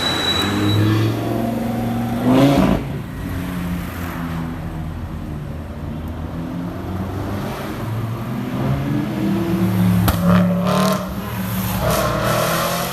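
Audi RS5 with a Capristo exhaust revving: the engine note climbs sharply about two seconds in, settles to a steady run, then builds again near the end with a sharp pop about ten seconds in.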